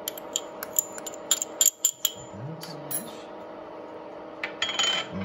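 A metal spoon clinking against a small glass bowl several times in quick succession in the first two seconds as brown sugar is knocked into a saucepan, over the steady hum of an induction hob; a brief scraping rustle near the end.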